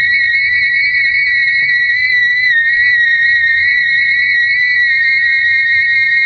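Kite line humming in the wind: one steady high whine that wavers slightly in pitch and dips briefly about two and a half seconds in, over a low rumble.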